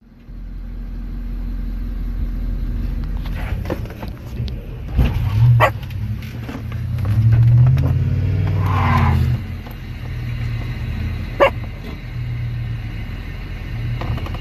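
A dog barking now and then, with a car engine running and revving underneath.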